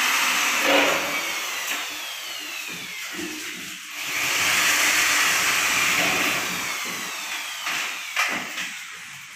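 Corded electric drill run twice while drilling into an aluminum awning window frame. Each run ends in a falling whine as the motor winds down, and a sharp knock follows near the end.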